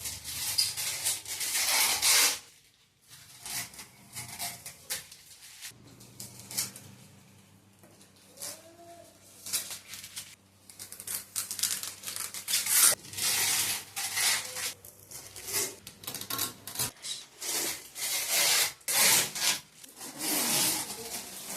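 Packaging being torn, rubbed and pulled off a new aluminium door: irregular bursts of rustling and scraping, some short, some a second or two long. A faint low hum runs under the middle of it.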